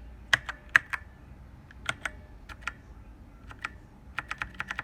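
Key presses on an E-Element Z88 mechanical keyboard with clicky switches: single clicks a fraction of a second apart, then a quick run of presses near the end.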